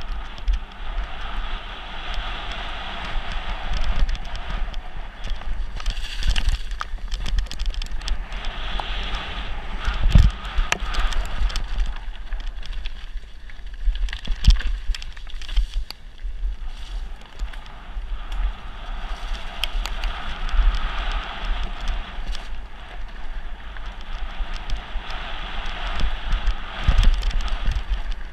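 Mountain bike descending a loose gravel and dirt trail at speed: tyres rumbling and crunching over stones and the bike rattling and clattering over bumps, with wind buffeting the camera microphone. There are harder knocks about ten and fourteen seconds in.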